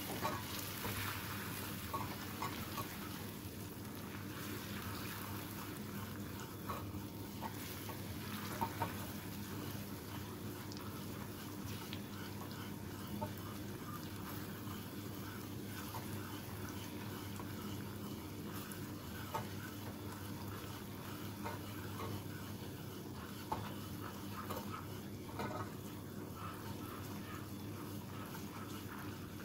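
Wire whisk stirring hot caramel in a stainless steel pan, melting in a lump of butter: a steady sizzle of the bubbling sugar with scattered light clicks of the whisk against the pan.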